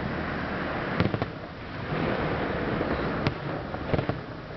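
Aerial firework shells bursting: sharp bangs about a second in and again a little after three and four seconds, over a steady rumble and crackle from the display.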